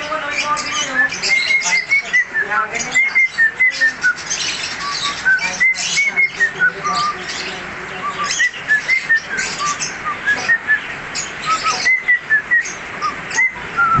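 Cockatiel singing: a continuous run of short whistled notes rising and falling in pitch, mixed with harsh, scratchy chatter.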